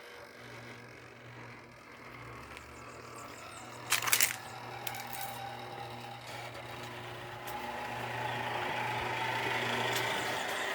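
Electric gate motor running steadily as a motorised gate opens, with a loud clack about four seconds in and a rougher rolling noise building near the end.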